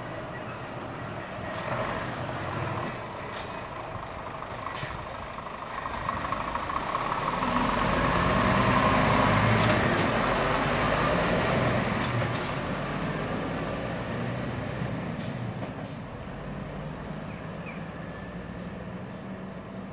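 Scania P370 milk tanker's diesel engine pulling away and driving past, swelling to its loudest about eight to twelve seconds in, then fading as the lorry moves off down the road.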